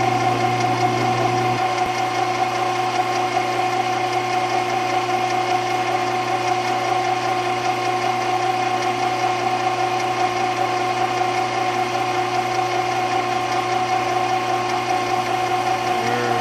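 Grizzly G0602 10x22 benchtop metal lathe running steadily at 560 RPM with an even mechanical whine and hum, while a high-speed-steel bit takes a facing cut on brass bar stock.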